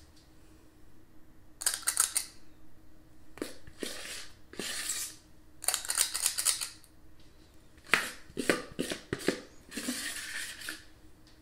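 Metal squeeze-handle cookie scoop scraping biscuit dough from a mixing bowl and clicking as its lever releases the dough onto the casserole. The clicks and scrapes come in several separate bursts.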